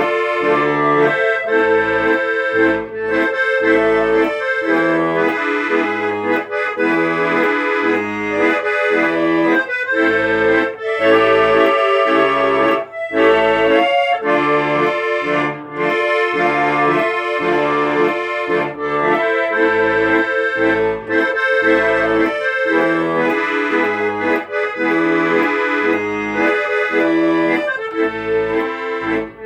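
Instrumental music: a melody of held notes over a steady, rhythmic bass-and-chord accompaniment.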